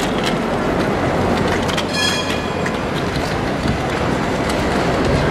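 City tram running along street rails through a junction: a steady rumble of wheels on track mixed with street noise. About two seconds in, a short bell ring.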